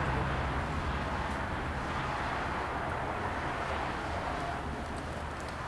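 Steady rushing hiss of a gas jet from a hose-fed hand nozzle, with a low rumble beneath, easing slightly toward the end.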